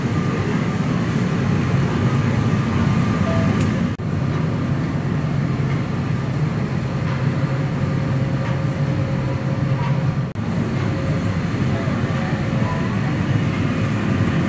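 Steady rushing hum of the air-conditioning and ventilation in a parked Airbus A330-300's cabin, with two brief breaks where it dips.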